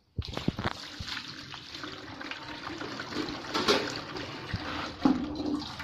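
Water pouring from a metal pot and splashing into a plastic basin holding cut fish pieces. It starts suddenly with a few knocks and then runs on as a steady splashing stream.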